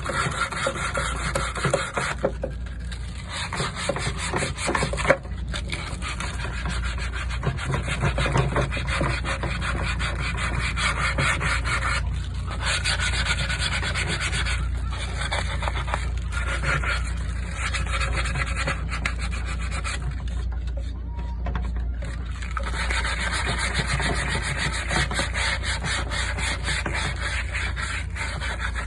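Sanding on a wooden tabletop: a continuous abrasive rubbing and scratching against the wood, with a few short breaks.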